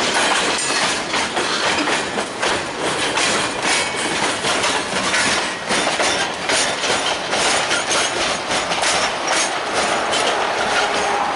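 Freight cars rolling past: steel wheels clattering and clicking over the rail joints as the last car, a steel open hopper, goes by.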